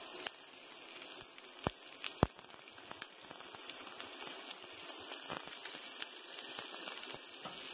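Sliced onion frying in melted butter in a non-stick pan: a steady sizzle with small crackles as the onion is pushed in and stirred with a plastic spatula. Two sharp knocks stand out about two seconds in.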